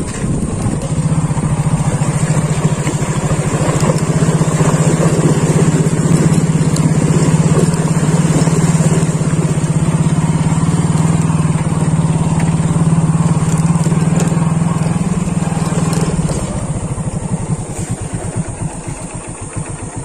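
Motorcycle engine running with a steady, held note for about fifteen seconds, then dropping to a lower, rougher note near the end.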